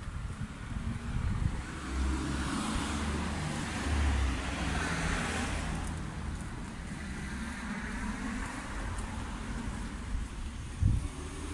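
A car driving past on a street, its tyre and engine noise swelling to a peak about five seconds in and then fading, over a steady low rumble of traffic. A short low thump near the end.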